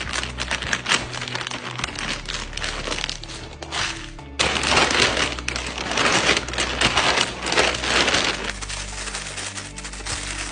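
Clear plastic vacuum storage bag crinkling and rustling as diapers are handled inside it and the bag is pressed flat, growing denser and louder about four seconds in. Background music plays under it.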